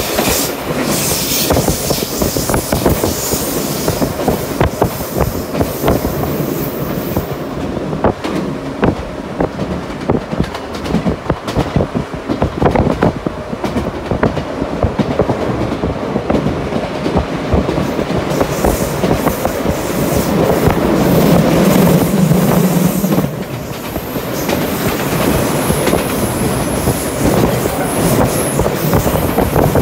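Passenger train running, heard through an open carriage window: steady wheel-on-rail rumble with rapid clicking, and a thin high wheel squeal at the start and again through the second half. A louder low drone swells for a few seconds past the middle.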